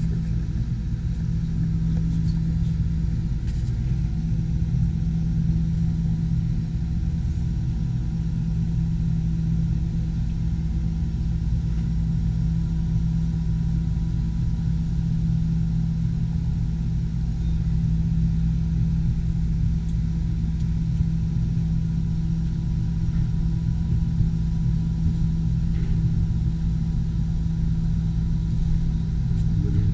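Steady low mechanical hum inside an enclosed Ferris wheel gondola, with a constant low tone and a faint higher whine that stay level throughout.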